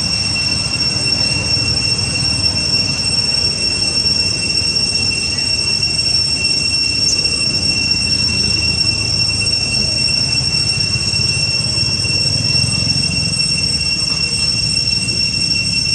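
A steady high-pitched whine holding one pitch without a break, over a constant low rumble.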